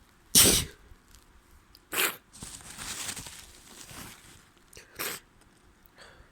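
A person with a head cold sneezing and blowing their nose. A loud, sharp, wet burst comes about half a second in, another sharp one near two seconds runs into a rough blow lasting about two seconds, and a shorter burst follows near five seconds.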